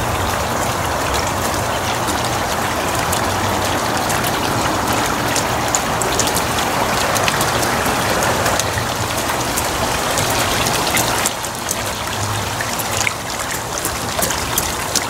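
Backyard water feature running: a steady splash and trickle of water falling onto stones, a little quieter from about eleven seconds in.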